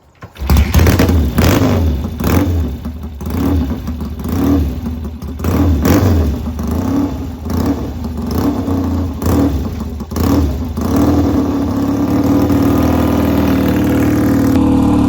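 1966 Triumph Bonneville T120TT's 650cc parallel-twin engine catching on a kick-start and firing up. It is revved in uneven blips for about ten seconds, then settles into a steady fast idle.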